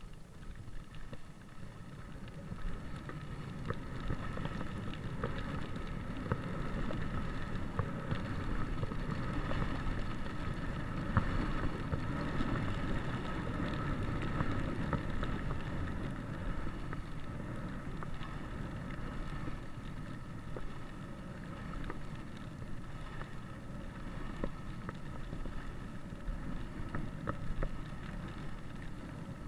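Skis sliding and carving down a groomed snow slope, a steady scraping hiss with wind rushing past the microphone; it grows louder over the first few seconds as speed builds, with small scattered clicks.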